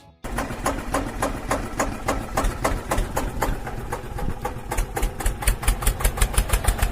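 Small electric motor of a homemade mini tractor model running, with a rapid, regular clicking that grows louder near the end.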